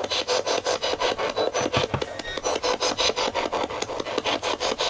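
Ghost-hunting spirit box sweeping through radio frequencies: a rapid, regular chopping of static, about ten bursts a second, with brief snatches of tone between them.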